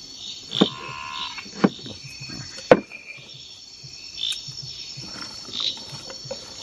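Steady high chirring of a rainforest insect and frog chorus. Three sharp knocks come in the first three seconds, the last one the loudest.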